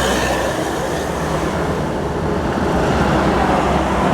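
Road traffic with heavy bus engines running: a steady low rumble under road noise, with no horn sounding.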